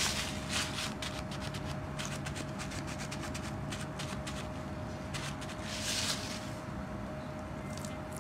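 Kitchen paper towel rustling and crackling as it is pressed and rubbed over a thawed raw steak to blot the surface juices dry, in irregular clusters of soft scrapes and crinkles over a steady hum.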